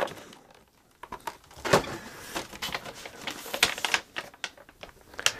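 Unboxing handling noise: cardboard packaging, a cable and a power brick being moved and set down on a wooden desk. A quiet first second, then a run of light clicks, knocks and rustles, with one sharper knock about two seconds in.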